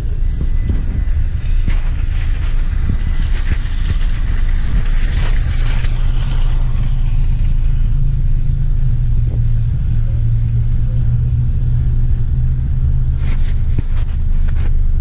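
Car driving: steady engine and road rumble, with a few short clicks near the end.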